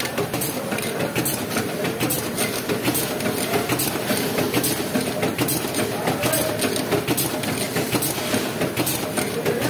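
Multi-track high-speed ketchup and mayonnaise pouch packing machine running at production speed: a steady mechanical clatter with sharp clicks recurring through it.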